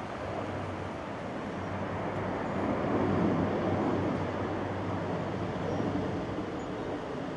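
Wind blowing, a rushing noise that swells in a gust about three seconds in and eases off again.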